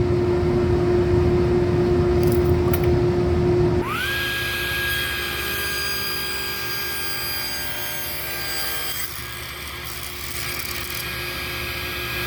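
Table saw running and ripping a board to width. About four seconds in, the sound changes abruptly to a quieter, steady high whine that first rises in pitch and then holds.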